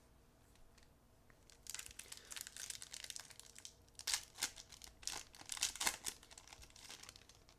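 Foil wrapper of a 2020 Topps Baseball Update Series pack being torn open and crinkled by hand. The crackling starts about two seconds in and is loudest around four to six seconds in.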